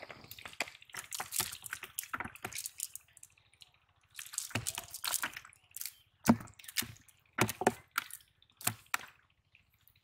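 Wet cast net being handled as fish are picked out of it: water dripping and splashing off the mesh, with irregular wet slaps and squelches and a few heavier thumps.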